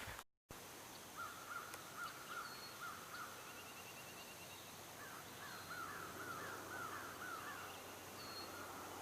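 Faint crows cawing in two quick runs of short, repeated calls, one starting about a second in and a longer, faster one past the middle, over a steady faint outdoor hiss.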